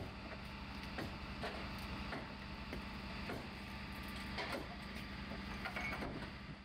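Fire engine idling with a steady low hum, with scattered knocks and clatter on top.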